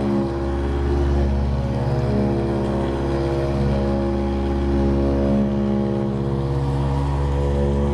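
Electric massage tool running steadily with a low motor hum while it is worked over tight shoulder muscles to loosen them.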